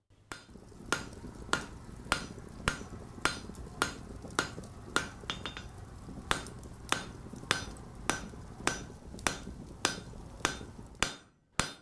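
Hammer blows on an anvil in a steady blacksmithing rhythm, about one and a half strikes a second, over a low steady rumble. The strikes stop shortly before the end, with one more blow near the end.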